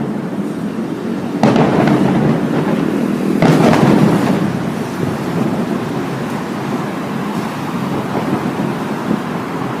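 Distant fireworks shells bursting: two deep booms about two seconds apart, each rumbling away over about a second, over steady background noise.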